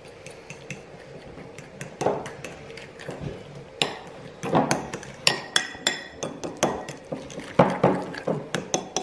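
A metal utensil stirring in a small glass bowl, clinking and scraping against the glass as egg yolks, grated cheese and pepper are beaten into carbonara sauce. The taps are irregular, sparse at first and coming thick and fast from about four seconds in.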